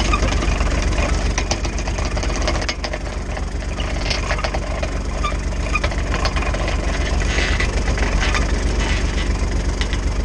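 Kawasaki Mule utility vehicle's engine running steadily, with scattered clicks and rattles from the towed bale carrier.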